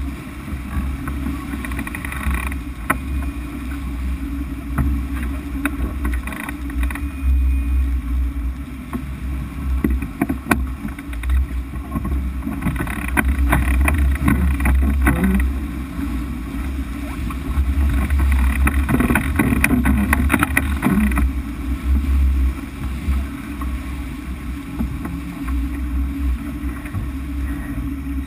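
Wind buffeting the microphone and water rushing and hissing along the hull of a sport sailboat sailing fast, with the spray rising in two louder spells about halfway and about two-thirds of the way through.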